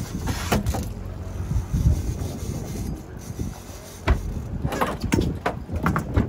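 Low rumble of a fishing boat under way with wind buffeting the microphone, and several sharp knocks, one just after the start and a cluster between about four and six seconds in.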